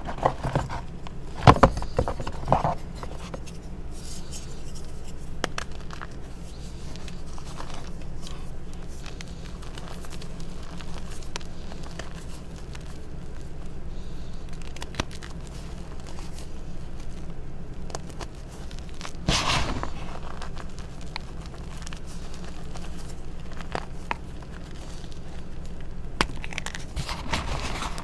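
Hands crushing and crumbling reformed gym chalk, blocks of chalk powder pressed back together, in a tray of loose chalk: a soft crunching and scraping, with sharp snaps about two seconds in and a louder crunch about two-thirds of the way through.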